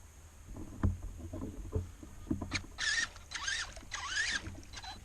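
Electric RC truck churning through wet mud: a few low thumps and squelches, then about three bursts of motor whine that rise and fall in pitch with the throttle, mixed with mud splashing.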